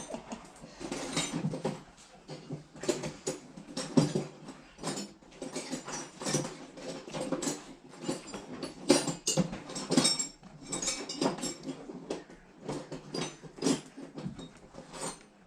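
Irregular metal clinks, knocks and short rattles of hand tools working on the rusty steel parts of an old surgical table as it is taken apart.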